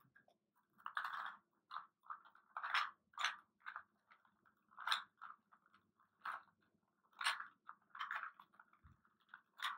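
A Rubik's Cube being twisted by hand to scramble it: irregular plastic clicks and rasps of the layers turning, several to a second.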